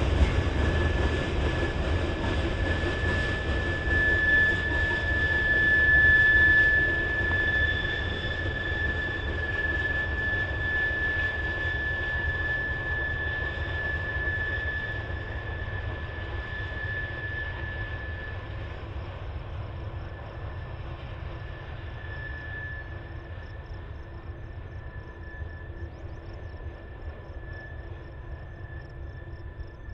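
Long freight train rolling away around a curve, the low rumble of its cars fading steadily, with a steady high-pitched wheel squeal above it.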